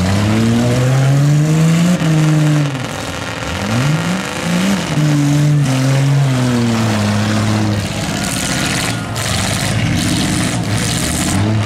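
Demolition derby pickup truck engines revving hard and easing off over and over, more than one at a time, their pitch climbing and falling every second or two.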